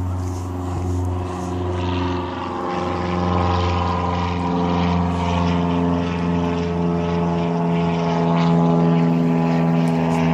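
Airplane passing: a steady engine drone with evenly spaced tones whose pitch drifts slightly, growing louder toward the end.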